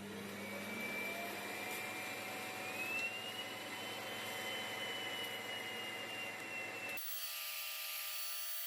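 Roborock Auto Empty Dock's suction motor running at full power, emptying the robot vacuum's dustbin, a steady loud whir with a high whine that steps up in pitch about three seconds in. Near the end the low rushing part cuts off abruptly and only the high whine tones remain.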